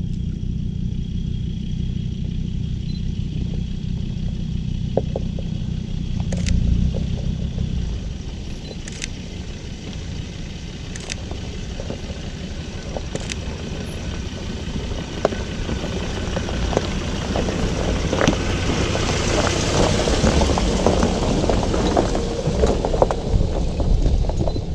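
A 4x4 pickup truck descending a rough stony track: a low, steady engine rumble, then tyres crunching and clattering over loose rocks, growing louder as it comes close in the second half, with a few sharp stone clicks along the way.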